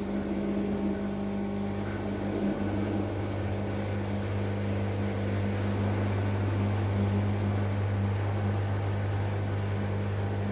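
Drain pump of a Gorenje SensoCare W7723 washing machine running during the drain, a steady low hum with a faint rushing of water over it; the hum firms up a few seconds in. The owner says this pump makes strange sounds and has small problems, not serious ones.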